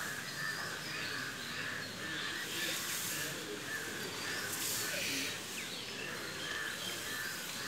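Outdoor ambience: birds chirping here and there over a steady high call that pulses about twice a second.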